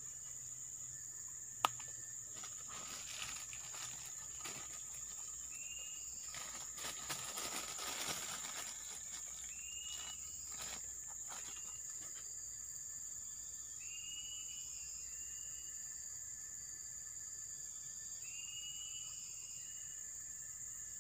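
Steady high-pitched insect drone of a tropical forest, with short chirping calls every few seconds. A sharp click about a second and a half in, and some light rustling and tapping around the middle.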